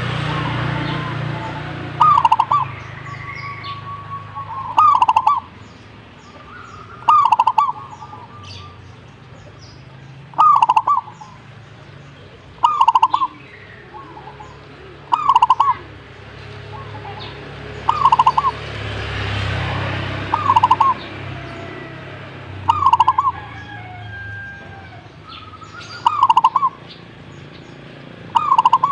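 Zebra dove cooing: a short phrase of a few quick notes, repeated about every two and a half seconds, with fainter small-bird chirps behind it.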